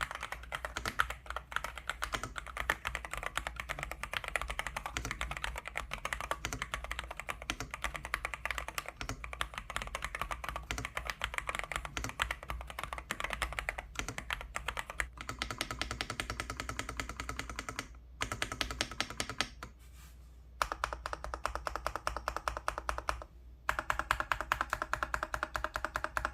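Rapid, continuous typing on a Dareu A98-series gasket-mount mechanical keyboard, the keys clacking in quick runs with a few short pauses in the second half. Soft background music joins partway through.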